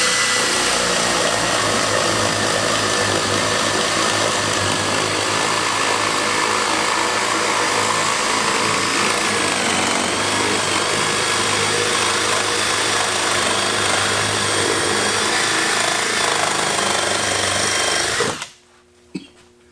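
Cordless hammer drill boring a spade bit through wood under load, running continuously for about eighteen seconds and then stopping abruptly.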